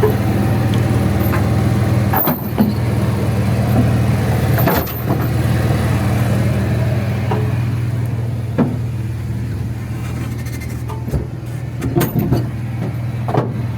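An engine running steadily at idle, with a few short sharp knocks over it.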